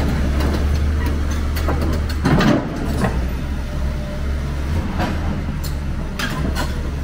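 Heavy diesel engine running steadily with a low drone, scattered knocks, and a louder swell of noise about two and a half seconds in.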